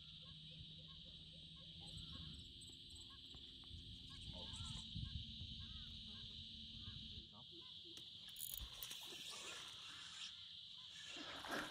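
Insects calling in a steady high-pitched drone, with faint short chirps scattered through it.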